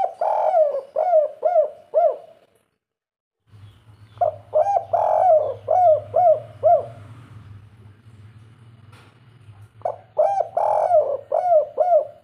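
Spotted dove (tekukur) cooing: three phrases of its rolling call, each a quick string of short arched notes, the call type that Indonesian dove keepers call 'kuk 3'.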